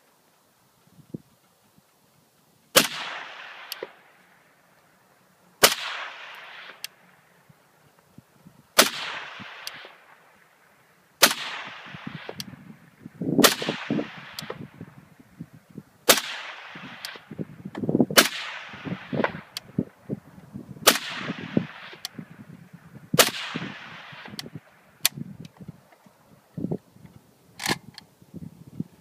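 Suppressed PSL-54 rifle with a Huntertown Arms Kestrel .30-calibre suppressor, firing 7.62×54R military ball: about nine shots spaced two to three seconds apart, the first about three seconds in. Each shot is a sharp report followed by a rolling echo lasting about a second.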